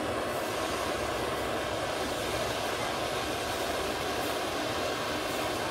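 Steady hissing rush from a homemade fogger: a hand-pump sprayer bottle feeding its liquid into a heated wire-wrapped coil nozzle.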